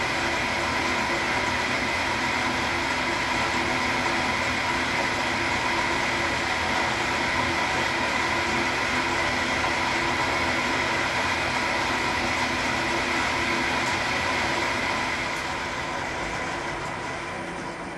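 1955 Schaublin SV-51 milling machine running steadily while an insert face mill takes a pass across the bottom of a machinist vice, a continuous hum and hiss with steady whining tones. The sound dies away over the last few seconds.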